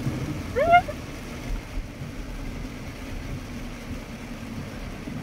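Steady running noise of a car heard from inside the cabin on a wet road, with a brief rising vocal exclamation about half a second in.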